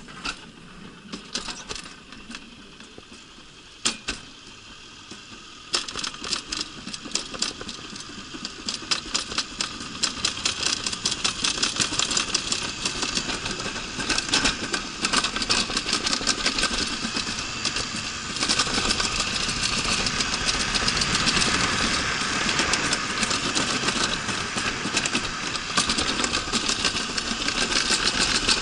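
Summer toboggan sled running down a steel-trough alpine slide, rattling in rapid clicks over a rushing noise. It is sparse and quiet at first, then from about six seconds in grows louder and denser as the sled gathers speed.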